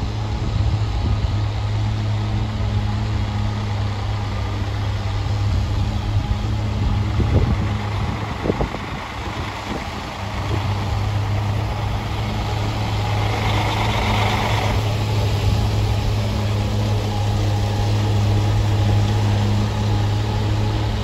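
Heavy diesel snow-removal machinery, a snowblower and dump trucks, running with a steady low engine drone. There are a few knocks near the middle and a short hiss a little past two-thirds of the way through.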